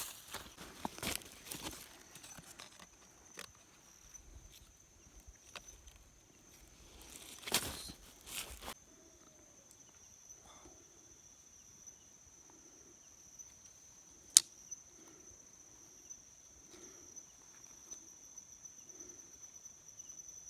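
Outdoor rustling and handling noises with scattered clicks, a rustling burst about seven seconds in and one sharp loud click about halfway through, over a steady high-pitched whine.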